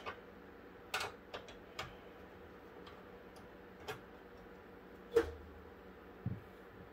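Scattered light metallic clicks and taps of a screwdriver and small screws at a PC case's metal expansion-slot bracket as the graphics card's bracket screws are taken out. The sharpest click comes about five seconds in, followed by a soft low thump.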